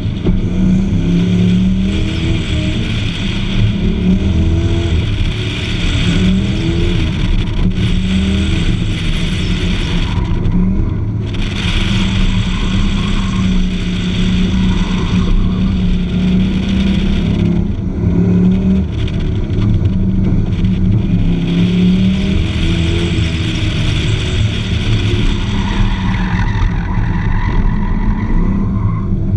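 Car engine driven hard through an autocross cone course, its pitch repeatedly rising under acceleration and dropping as the driver lifts. Heard from outside the car, under steady road and wind noise.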